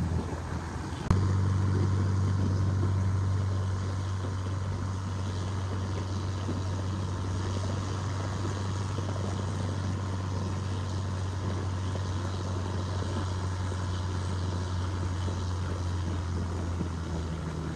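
Boat engine running at a steady pace as the boat travels. A sharp click comes about a second in, after which the engine is louder.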